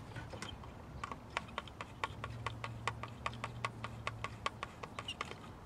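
Quick, even clicking, about five clicks a second, from about a second in to near the end, as the screws holding a wooden whirligig's barrel organ in place are undone.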